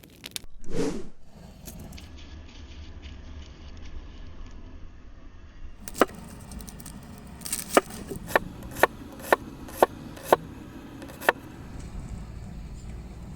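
Knife knocking down through food onto a wooden cutting board, eight sharp cuts about two a second during the second half. About a second in there is a brief, louder whoosh.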